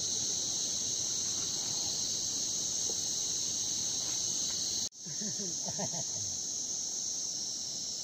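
A steady, shrill chorus of insects, unbroken except for a momentary break about five seconds in.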